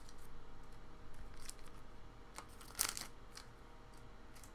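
Trading card being handled and slipped into a soft plastic card sleeve: a few short, faint rustles and crinkles, the sharpest a little past the middle.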